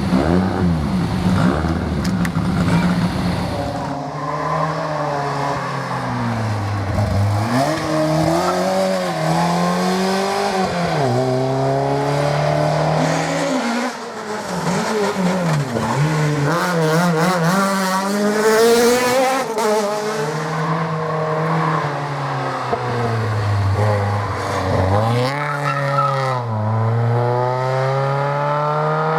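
Rally car engines at full stage pace, revving up repeatedly as they accelerate through the gears and dropping back between shifts and for corners, across several short clips.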